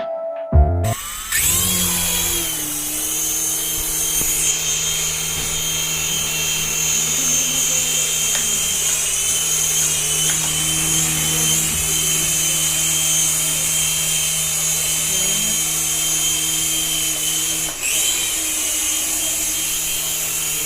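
A battery toy's small electric motor running steadily, spinning up about a second in, with a brief dip near the end.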